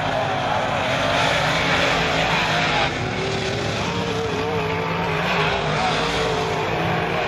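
Several dirt-track modified race cars' V8 engines running at racing speed. Their pitch wavers up and down as the cars come off the turn and pass down the straight.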